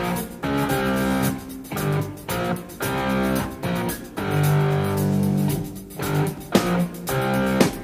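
A song playing, led by a plucked guitar over a bass line.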